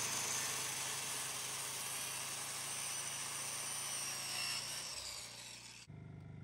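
Corded circular saw running and cutting through a wooden floor board, a high steady motor whine over the cutting noise. The whine sags slightly near the end and the sound cuts off abruptly about six seconds in, leaving only a faint low hum.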